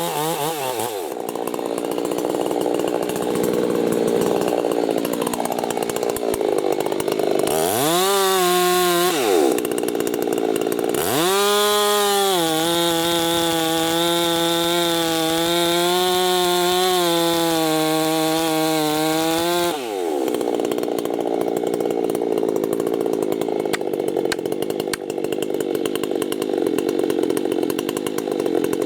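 Two-stroke chainsaw working on a tree: the engine revs up and down, holds a long steady high rev through the middle, then drops back suddenly, with rougher cutting noise in the stretches either side.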